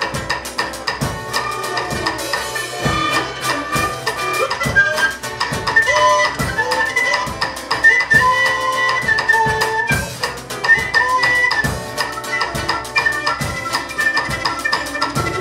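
Live jazz band playing: drum kit keeping a steady beat under trumpet and acoustic guitar, with a melody line wandering up and down over it.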